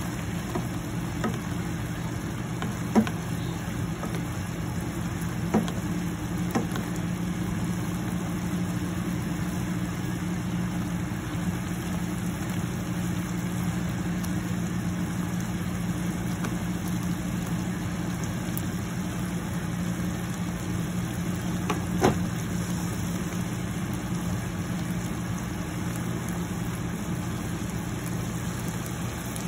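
A steady low machine hum runs under shrimp cooking in sauce in a nonstick pan. A spatula knocks against the pan a few times, sharpest about three seconds in and again about twenty-two seconds in.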